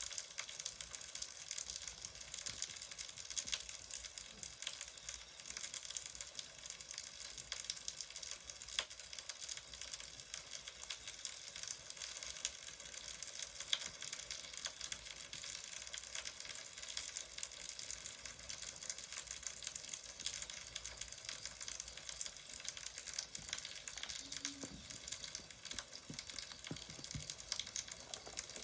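Wood fire crackling steadily, a constant hiss dotted with small pops and snaps.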